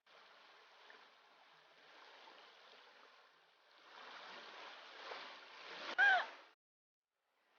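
Creek water running over rocks, growing louder about four seconds in, with a brief pitched call or voice sound about six seconds in that is the loudest moment; the sound cuts off abruptly just after.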